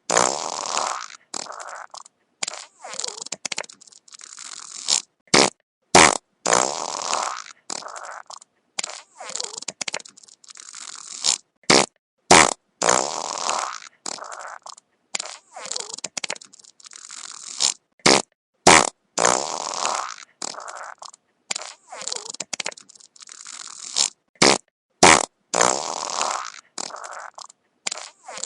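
Wet fart sound effect played repeatedly: short spluttering, bubbly bursts, some cut off sharply and others trailing off over a second or so, one after another with brief gaps.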